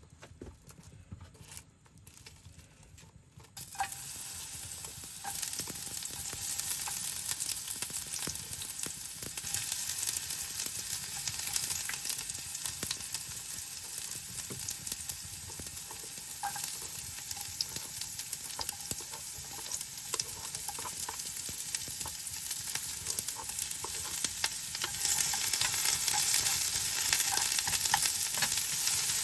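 Food sizzling and crackling in a hot pan. It starts suddenly about four seconds in, after a few clicks, and gets louder near the end.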